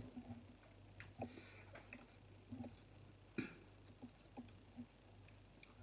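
Close-up eating sounds: soft chewing and wet mouth clicks on glass noodles, with scattered small clicks and taps of chopsticks and a spoon in a ceramic bowl, the sharpest about three and a half seconds in.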